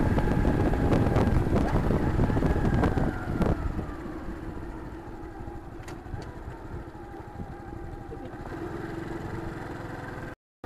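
Honda Cross Cub's air-cooled single-cylinder engine running on the move, picked up by the drive recorder's remote-mounted mic. It is loud and rough for the first three and a half seconds, then drops to a quieter, steadier hum, and cuts out for an instant near the end.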